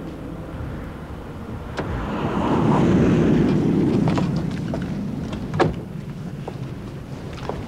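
A car driving on wet concrete, its noise swelling and fading over a few seconds, with wind on the microphone. A few short, sharp knocks follow.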